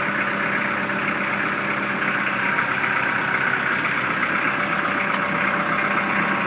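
Kubota L4240HST tractor's diesel engine running steadily at low speed.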